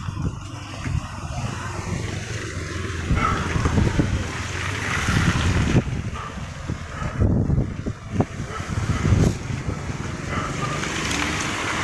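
A vehicle's engine running at low speed, with irregular knocks and gusty rushes of noise over it.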